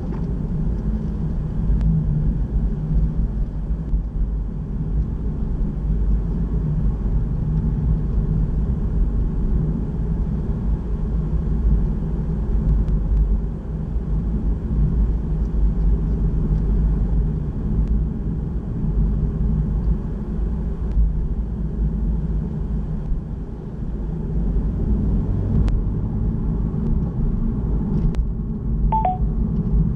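Car engine and road noise heard from inside the cabin while driving slowly: a steady low rumble that eases off briefly a couple of times. A short faint chirp sounds near the end.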